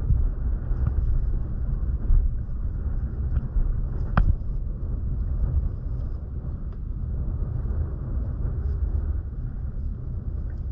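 Steady low rumble aboard a small fishing boat at sea, with one sharp knock about four seconds in.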